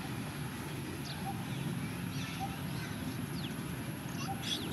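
Outdoor ambience: a steady low rumble with a thin high steady tone, and a few faint short bird chirps scattered through it.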